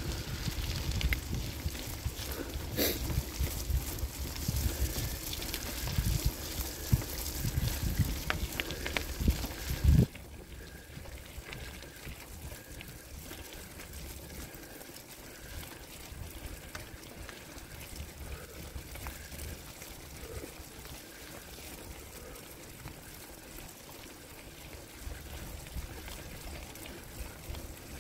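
Riding noise of a bicycle on a dirt forest road, picked up by a handlebar-mounted camera: a rushing, rumbling noise with a few knocks. It drops suddenly about ten seconds in and stays quieter.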